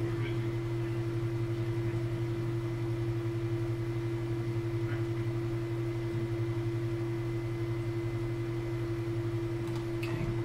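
A steady low hum, with a faint higher tone held over it, running without change.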